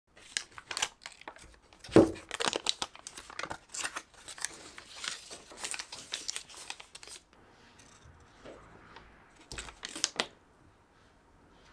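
Crinkling and rustling handling noise with quick sharp clicks and snips, densest over the first seven seconds, with a loud stroke about two seconds in and another cluster near ten seconds.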